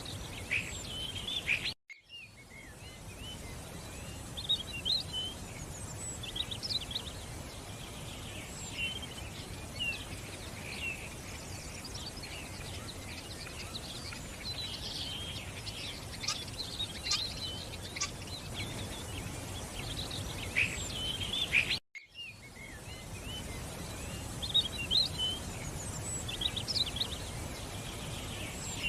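Several birds chirping and calling in short, quick phrases over a steady background noise. The sound drops out abruptly and briefly twice, about two seconds in and again about twenty-two seconds in, like splices between recordings.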